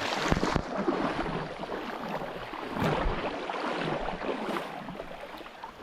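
Flowing creek water rushing and splashing, with a couple of dull knocks at the start and about three seconds in.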